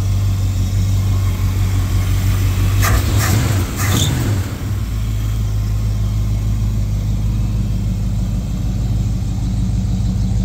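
A Dodge 318 V8 idling steadily with its hood up. About three to four seconds in come a few short, sharp sounds, and the engine note wavers briefly.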